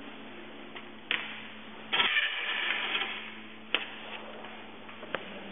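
Ticket-validating machine stamping a train ticket: a short mechanical whirr about two seconds in, with a few sharp clicks around it, over a steady low hum.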